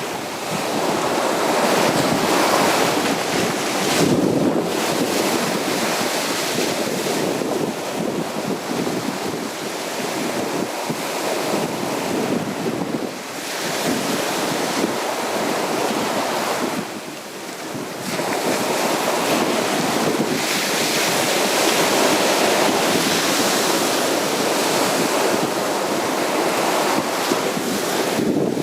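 Sea waves breaking and washing on a beach, a steady surging hiss that eases off briefly twice, with wind buffeting the microphone.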